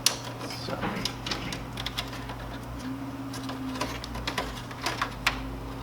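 Irregular small clicks and taps of hands handling wiring and plastic cable connectors inside a laser printer, over a steady low hum.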